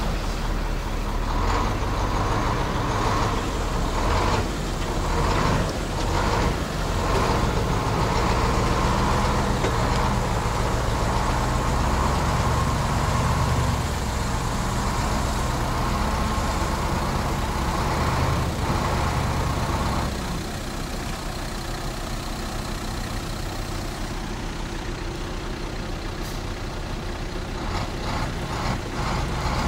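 Heavy off-road truck's diesel engine running steadily while it tows an SUV out of mud on a strap, with some irregular noise in the first few seconds. About two-thirds of the way in, the sound steps down to a quieter, steadier engine note.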